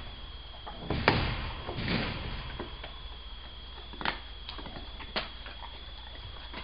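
Dog gnawing a raw beef bone: irregular sharp clicks and cracks of teeth on bone, several quick ones about a second in and near two seconds, then single cracks around four and five seconds.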